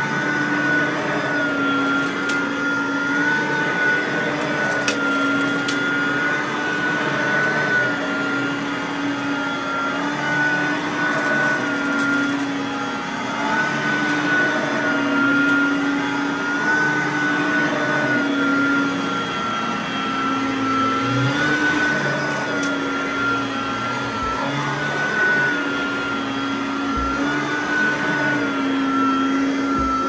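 Riccar R10S SupraLite upright vacuum cleaner running on carpet: a steady motor whine over a rushing airflow, its pitch dipping slightly now and then as it is pushed along.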